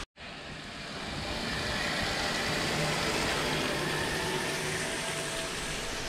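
A motor vehicle passing: a steady rushing noise with a faint hum that swells to its loudest about halfway through and then eases off.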